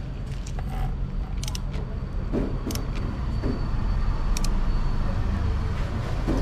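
A handful of sharp metallic clicks from a small socket ratchet and its socket working the banjo bolt of a braided brake hose onto a hydraulic brake master cylinder, as the fitting is snugged down. A steady low rumble runs underneath.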